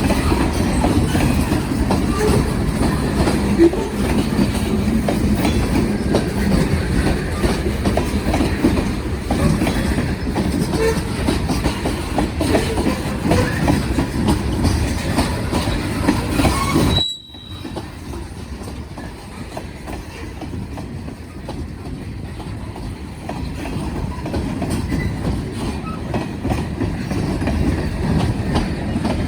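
Freight cars of a passing train rolling by, wheels clacking over rail joints with faint wheel squeal. About two-thirds of the way through the sound drops off suddenly to a much quieter rumble that slowly grows louder again.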